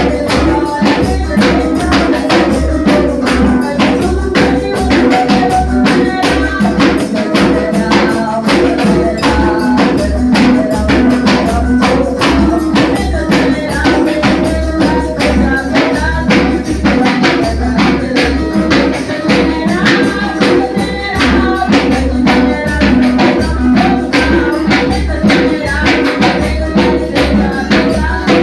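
A small gospel band playing, with a tambourine shaken and struck on every beat over a steady low beat, and pitched instruments and faint singing.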